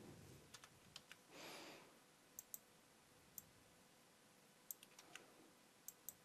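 Faint, scattered computer mouse clicks, about a dozen in all, some in quick pairs, over near silence, with one brief soft hiss about a second and a half in.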